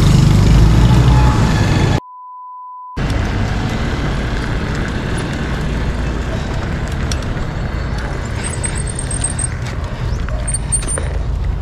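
Steady road traffic noise, a broad rumble of passing vehicles. About two seconds in, all other sound cuts out for about a second behind a single steady bleep tone.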